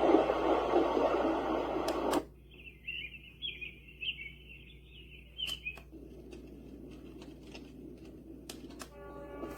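A sleep sound machine switching between its sounds, with sharp button clicks at each change. A steady rushing noise cuts off after about two seconds, then a high chirping nature sound plays for a few seconds, and near the end a soft tonal melody begins.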